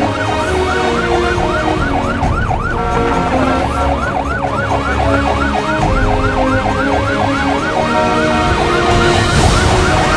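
Fire engine siren in a fast yelp, its pitch rising and falling about three times a second, with vehicle engine and road rumble beneath.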